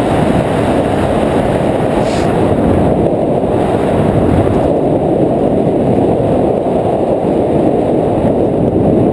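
Wind rushing over the camera's microphone as a skydiver flies a parachute canopy down toward landing: a loud, steady, low rush of air.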